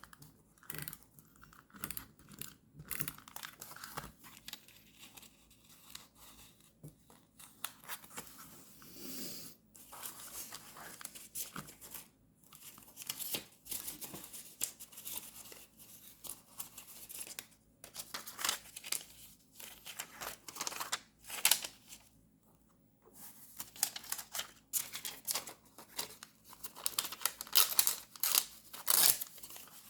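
Paper being handled: rustling, crinkling and tearing in short, irregular strokes, the sharpest about two-thirds through and several more near the end.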